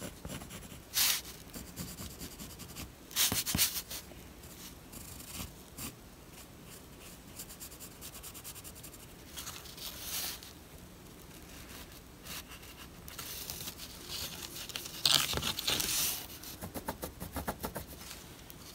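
Pencil scratching gill lines onto a carved wooden lure body in short strokes with pauses, mixed with small clicks and a few louder rubs of hands and wood on the bench.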